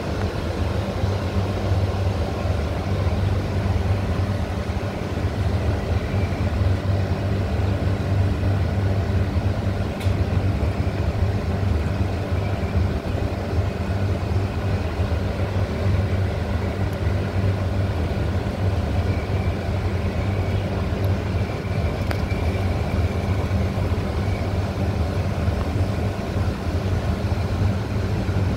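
A steady low mechanical hum, like a motor or engine running at constant speed, unchanging throughout.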